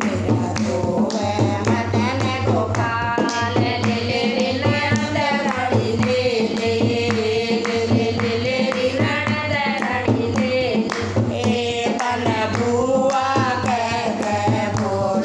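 Women singing a Krishna bhajan together in a folk devotional style, over a steady dholak drum beat and hand clapping.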